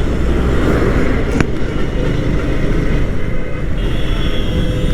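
Road traffic: a steady, loud rumble of passing vehicles, with a single sharp click about one and a half seconds in.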